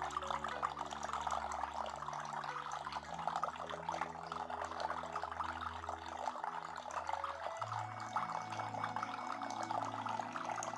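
Water running steadily down a small decorative resin-and-natural-stone waterfall fountain, a continuous trickle and splash.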